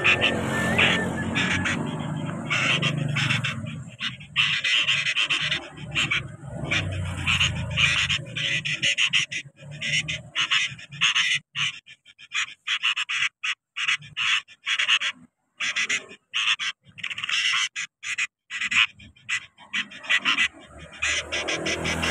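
Sooty-headed bulbul nestlings begging with high, rapid chirping calls in many short bursts broken by brief gaps, over a low rumble in the first several seconds.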